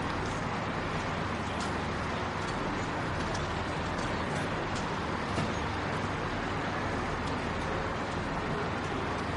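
Metro station ambience: a steady rumble and hum of the station, with faint short clicks scattered through it.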